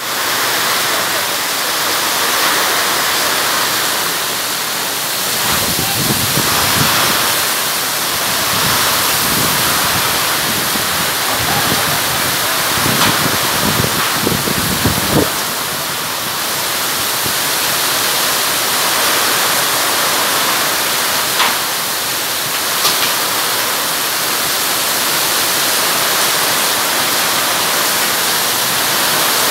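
Torrential monsoon rain pouring down on a street and shop awnings, a steady heavy hiss. Gusts of storm wind add low rumbles between about five and fifteen seconds in.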